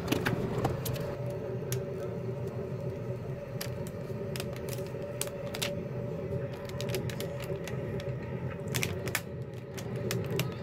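Irregular clicks and crinkles of fingers handling and pressing black tape over an LCD panel's flat ribbon cable, over a steady low hum.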